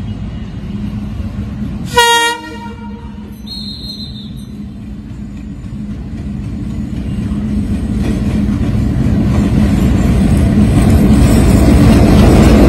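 Diesel locomotive of a passenger train giving one short horn blast about two seconds in, then its engine rumble growing steadily louder as it draws near and passes through a level crossing.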